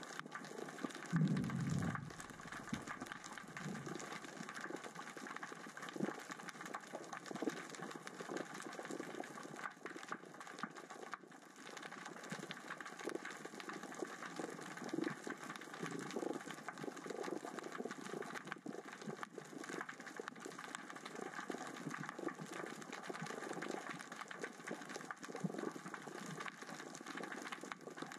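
Underwater crackling and clicking of small rocks rolled across the sea floor by the current and tide, with a louder low thump about a second in.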